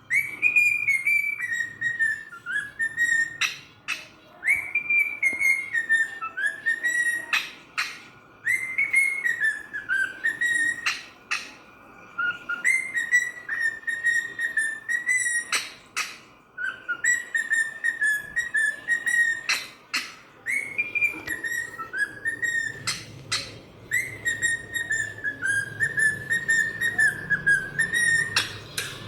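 A cockatiel whistling a tune in repeated short phrases, its notes gliding up and down, with sharp clicks between phrases.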